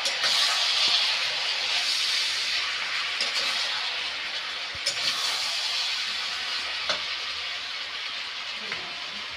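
Jackfruit and potato pieces with onion and ground spices sizzling in hot oil in a kadai while a metal spatula stirs them, with a few sharp clicks of the spatula on the pan. This is the kosha stage, frying the spices into the vegetables. The sizzle slowly weakens.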